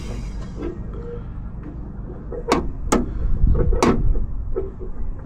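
Sharp clicks and knocks of small metal parts being worked by hand in a Jeep door's latch linkage while a clevis pin is fitted to the door rod, three of them louder about midway through.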